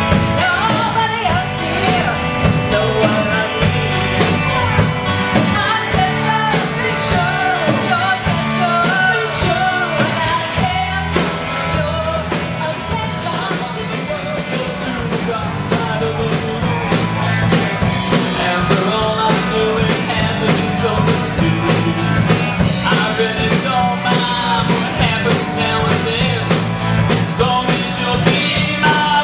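Rock band playing a classic alternative rock cover: a lead vocal over electric guitar, bass and a steady drum beat.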